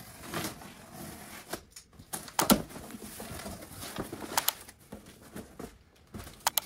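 A cardboard shipping box being cut open and unpacked: a box cutter slitting the packing tape, then cardboard flaps and smaller boxes being handled, with several sharp knocks along the way.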